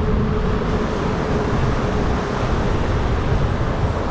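Steady rushing wind noise buffeting the microphone of a moving e-bike, heaviest in the low end and unbroken throughout.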